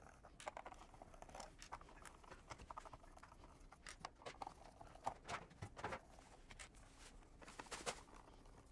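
Faint, irregular clicking and scratching of a screwdriver turning Phillips screws out of a soundbar's plastic case, with a few sharper clicks.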